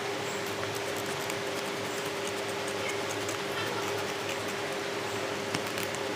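Scissors snipping through black paper, faint crisp clicks scattered through and coming closer together near the end, over a steady background hum.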